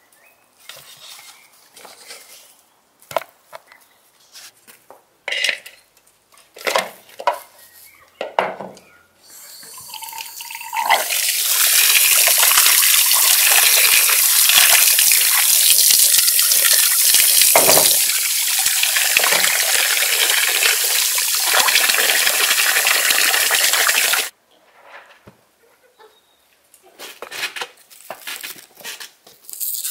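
Water from a tap pouring into a basin of raw beef ribs as hands rinse the meat: a loud, steady splashing hiss that builds up, then cuts off suddenly. Before and after it, a few light knocks and handling sounds of kitchenware.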